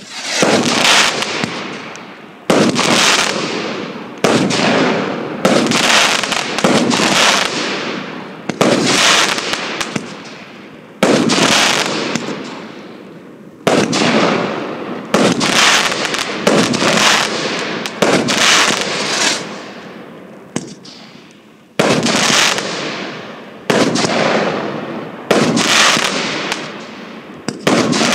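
A 37-shot, 25 mm (1-inch) consumer fireworks cake firing shot after shot, about one every one to two seconds. Each shot is a sharp report followed by a hiss that fades as the stars burn out.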